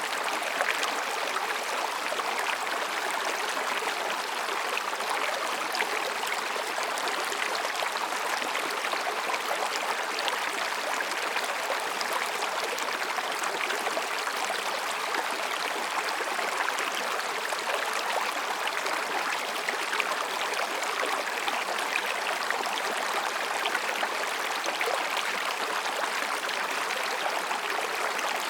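Mountain stream flowing over and between rocks: a steady, even babble of running water.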